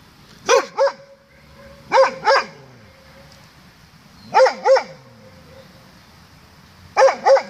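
Doberman barking in double barks, four pairs spaced about two to two and a half seconds apart. A faint echo trails each pair, and the dog is barking back at that echo.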